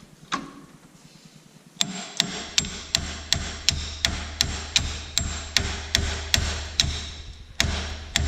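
A hammer striking metal: one knock, then from about two seconds in a rapid, even run of blows, about two and a half a second, each with a ringing tone.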